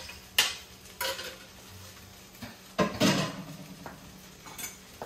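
Metal fork scraping and clinking against a plate as rice is knocked off into a pan: a few separate sharp clinks, with the loudest knock about three seconds in.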